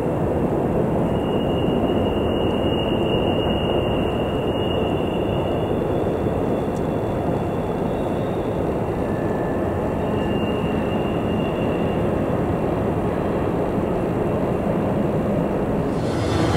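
Freight train rolling past on a sharp curve: a steady, loud rumble of wheels on rail, with a faint high wheel squeal coming and going.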